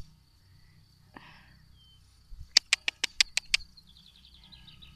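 Field crickets chirring steadily as one thin high tone. About halfway through, a quick run of seven loud, sharp clacks, roughly six a second, is followed by a brief falling twitter.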